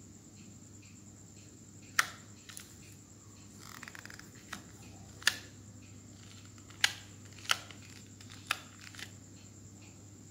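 Samsung SGH-T249 slider phone being pushed open and shut by hand: the spring-loaded slide snaps into place with several sharp plastic clicks, irregularly spaced, starting about two seconds in and ending near the end.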